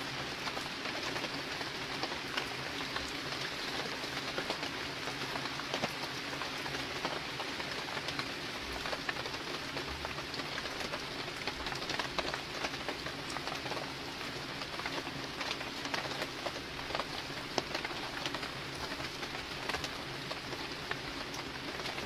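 Steady hiss scattered with many small sharp ticks, with a faint low hum underneath.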